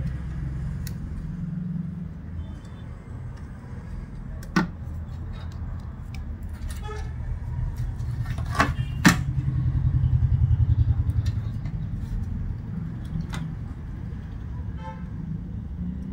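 Sharp clicks and taps from hands working backlight wire connectors into an LCD monitor's sheet-metal chassis, the clearest three coming about 4.5, 8.5 and 9 seconds in. Under them is a steady low rumble, and a pulsing motor-like rumble swells and fades about ten seconds in.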